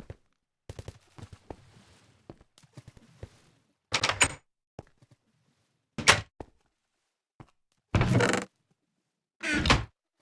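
Four loud thuds about two seconds apart, after a few seconds of light clicks and rustling.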